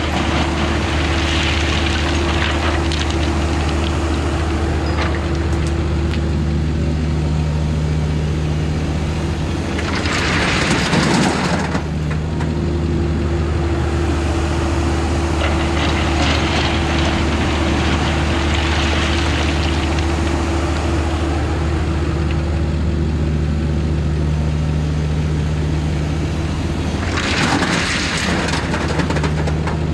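Bobcat E26 mini excavator's diesel engine running at a steady throttle. Twice it rises in a louder surge of noise, about a third of the way in and again near the end, as the hydraulics take load.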